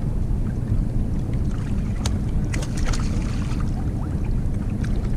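Wind rumbling steadily on an action-camera microphone over water lapping at a plastic kayak hull, with a few sharp ticks and splashes about two to three seconds in as a small fish is reeled up to the surface.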